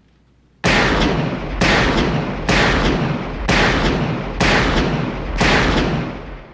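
Six revolver shots, evenly spaced about a second apart, each ringing out with a long echo.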